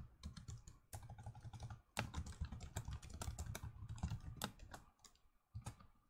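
Typing on a computer keyboard: a quick, uneven run of key clicks that stops about five seconds in, followed by one last keystroke.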